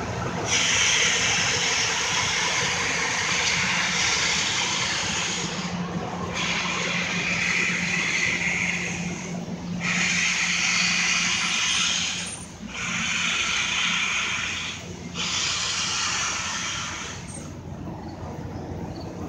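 Steam locomotive hissing steam in five long bursts with short breaks between them as it works its passenger train away, fading out near the end.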